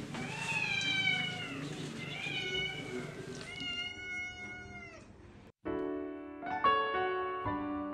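A domestic cat meowing three times in long, drawn-out calls that fall in pitch at the end. After a brief gap about five and a half seconds in, gentle piano music starts.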